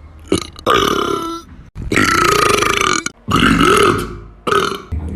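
About five loud, drawn-out burps in a row, the longest about a second, with short gaps between, each rising and falling in pitch.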